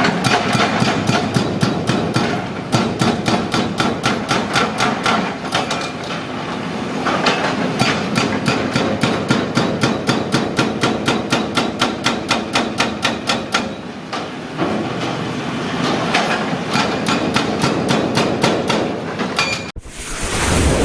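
Excavator-mounted hydraulic breaker hammering concrete, a rapid, even train of blows at several a second with a couple of brief lulls. Near the end it cuts off abruptly and a rising whoosh begins.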